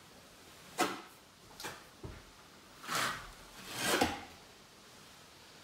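Notched trowel spreading tile adhesive onto a wall: several scraping strokes, a sharp one just under a second in and two longer, louder ones about three and four seconds in.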